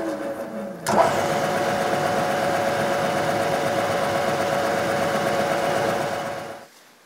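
Milling machine spindle running with a drill cutting into a metal workpiece: a steady whine over a noisy hum. At the start a tone falls in pitch and ends in a sharp click about a second in; the steady sound fades out near the end.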